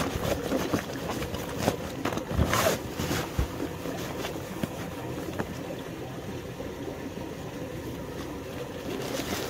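Nylon backpack rustling and scraping as it is packed and its straps pulled tight, with louder rustles about two to three seconds in, over a steady background rush.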